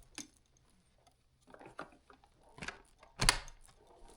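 Hard plastic clicks and knocks as the parts of a Shark Navigator Lift-Away upright vacuum are handled and tried for release, a few light ones and then a sharper knock about three seconds in.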